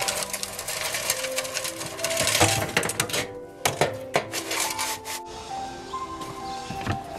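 Background music over the scraping, clicking rattle of a sheet-metal ash sifter being shaken through fireplace ash and coals, which lets the ash run into the tool's body. The rattling stops about five seconds in, leaving the music.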